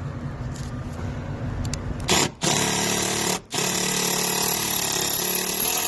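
Cordless power tool driving an 18 mm deep socket to spin out the seat belt pretensioner's mounting bolt. A loud motor whine starts about two seconds in, stops briefly twice, then runs on steadily.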